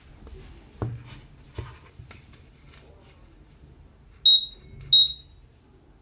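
Xiaomi Honeywell smoke detector giving two short, loud, high-pitched beeps under a second apart, as its self-check button is pressed to put it into pairing mode. A few soft handling knocks come before them.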